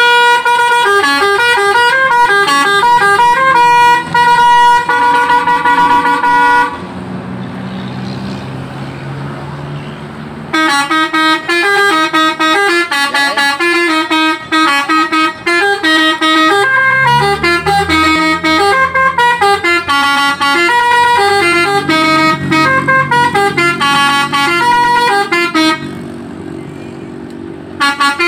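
Bus telolet air horn (Alzifa Airhorn V2.0) playing loud multi-note melodies, its tones stepping from note to note, in two long runs: one for the first six or seven seconds and one from about ten seconds in to near the end. Between them, and again just before the end, a quieter low hum and rumble fills the gap, and a new melody starts right at the close.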